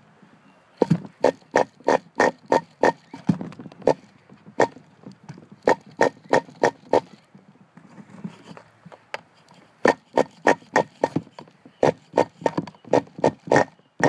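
Recoil pull-start of an RC car's nitro engine being yanked in quick short pulls, about three a second, in three runs. The engine turns over without catching.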